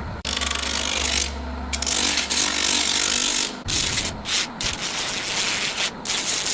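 Rough abrasive scraping on wood in long strokes with short breaks, as the wood is shaped by filing or sanding. A steady low motor hum runs under it for the first three and a half seconds, then stops.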